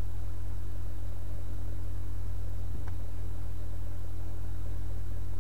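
Steady low hum with a faint higher tone above it, and one faint click about three seconds in.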